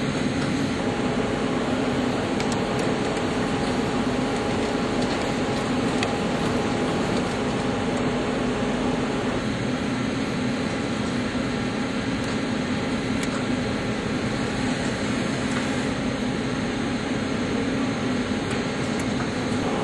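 CNC lathe grooving a steel shaft with a carbide grooving insert under coolant: a steady machine hiss and hum with a few faint steady tones and occasional light ticks.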